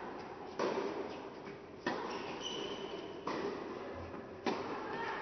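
Tennis rally: a ball struck back and forth by rackets, four sharp hits about a second and a quarter apart, each echoing in an indoor tennis hall.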